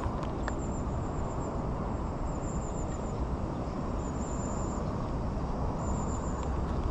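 Steady outdoor rushing noise, with short, high chirping trills repeating every second or two over it.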